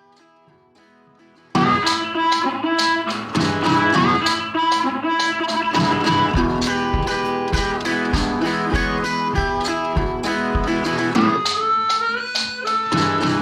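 Background music with guitar: faint at first, then coming in loud about a second and a half in, with a deep beat through the middle.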